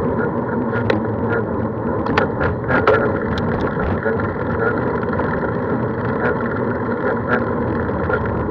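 Steady rushing road and wind noise of travelling along a route, with scattered light clicks and rattles, a small cluster of them about two to three seconds in.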